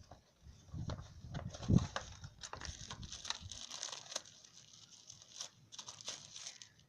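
Packaging being handled and unwrapped: crinkling plastic and paper rustling with scattered clicks and taps, and a dull thump a little under two seconds in.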